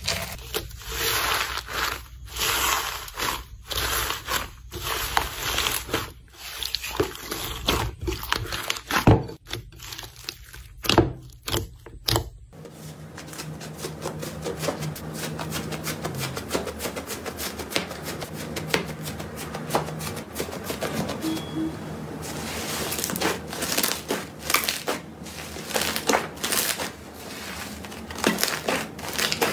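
Hands squishing slime. First, fingers knead purple slime packed with foam beads, with a crunch and crackle at each press. A little under halfway through, this changes to thick orange slime being pressed and pulled apart, with dense fine sticky crackling.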